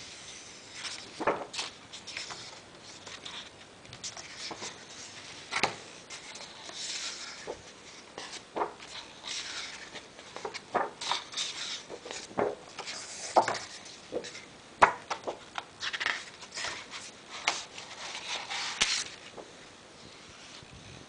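Pages of a hardcover art book being turned and handled: repeated paper swishes and rustles, with many short sharp taps scattered among them.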